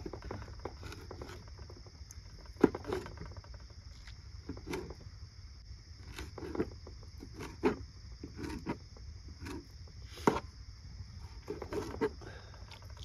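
Kitchen knife cutting tomatoes, knocking irregularly about once or twice a second, with a few sharper knocks. A steady chorus of crickets runs underneath.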